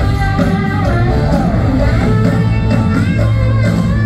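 A live rock band playing loudly through a stadium PA, with electric guitar to the fore over bass and drums.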